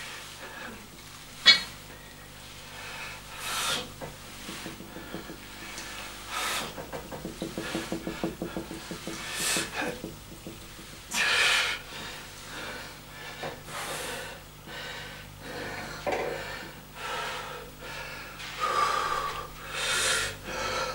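A man breathing hard through a set of barbell repetitions, with a loud rushing exhalation every one to three seconds. A single sharp metallic clink of the barbell's plates comes about one and a half seconds in.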